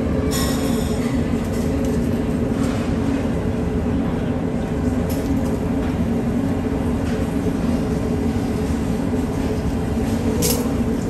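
Steady mechanical hum, even in level, with a few brief clinks about a second in, a few seconds in, around the middle and near the end.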